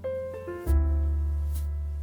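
Background music: keyboard notes playing a short melody over a deep bass note that enters about two-thirds of a second in and slowly fades.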